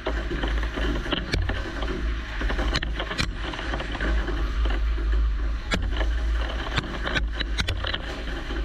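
Kennametal 2.5-inch KSEMplus modular drill cutting low carbon steel in a Doosan NHM 6300 horizontal CNC mill under heavy spindle load: a steady low rumble and dense hiss of flood coolant spray, broken by scattered sharp ticks of chips striking the machine enclosure.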